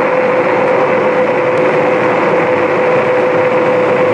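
Engwe X24 fat-tyre electric bike cruising flat out at about 31 mph: a loud, steady rush of wind over the handlebar microphone, with a steady whine from the bike held at one pitch.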